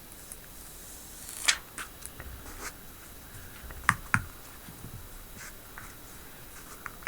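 Handling noises from a phone and screen protector being worked on: a few sharp plastic clicks and taps, the loudest about a second and a half in and twice close together around four seconds in, with smaller ticks and light scraping between them.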